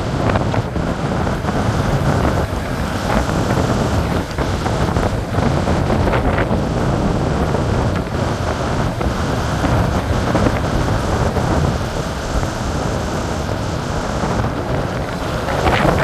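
Storm wind buffeting the microphone over heavy surf breaking on a beach: a loud, unbroken rush of wind and waves, with a stronger gust or wave crash near the end.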